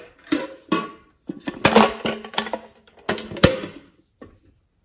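Hard plastic makeup containers and caps clacking, clicking and scraping as they are handled and opened, in a series of sharp knocks with short ringing. The handling is busiest from about a second and a half in to near four seconds.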